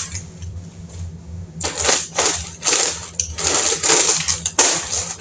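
Plastic snack packaging crinkling and rustling in irregular bursts as it is handled, starting about one and a half seconds in.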